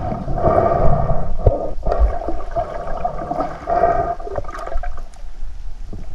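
Muffled water gurgling and sloshing heard underwater, swelling and fading every second or so, with a low rumble and a few scattered knocks.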